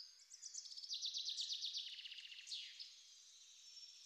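Birds singing, faint and high-pitched: a rapid trill of quickly repeated notes through the first half, then a falling note about two and a half seconds in, and only faint chirping after.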